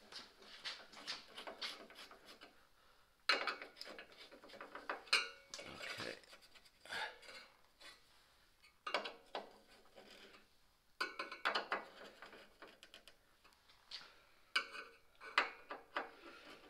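Screwdriver driving screws into a C3 Corvette's metal grille: spells of small metallic clicks, scrapes and rattles, about six of them separated by short pauses.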